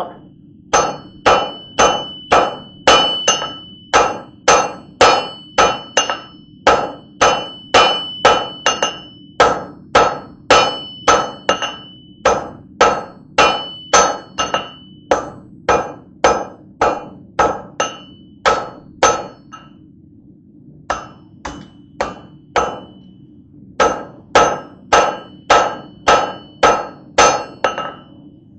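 Hand hammer striking hot steel on an anvil, flattening the point of a welded-wire blade: regular blows about two a second, each with a bright metallic ring. The blows stop briefly about twenty seconds in, then resume; a steady low hum runs beneath.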